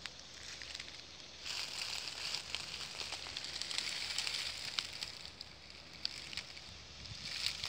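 Cicadas droning in the trees, a high steady buzz that swells about a second and a half in, with a few faint crackles.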